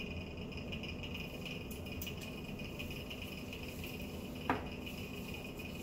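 Steady hum and hiss of running lab equipment, with a few faint clicks and a short rising squeak about four and a half seconds in.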